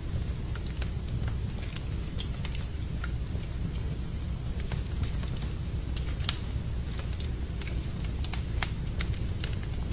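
Wood fire burning in a fireplace: a steady low rumble of the flames with irregular sharp crackles and pops from the burning logs, one louder pop about six seconds in.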